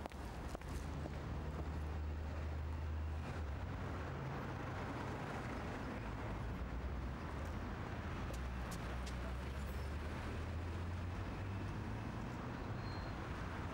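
Street traffic: a steady low engine rumble from road vehicles, with a slight change in pitch partway through and a few faint clicks.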